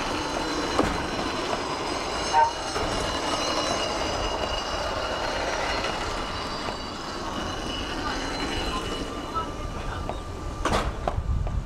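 Kintetsu Ikoma funicular cable car running along its track: steel wheels rumble and squeal on the rails under several high, steady whining tones. There is a sharp click about two and a half seconds in, and a few more clicks near the end.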